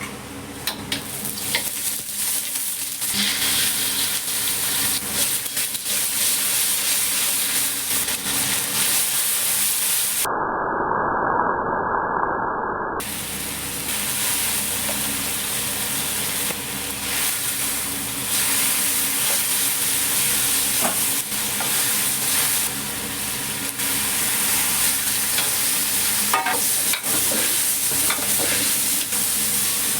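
Food sizzling as it fries in a pan, with a utensil stirring and scraping through it in small clicks and scrapes. For about three seconds, starting around ten seconds in, the sizzle turns muffled.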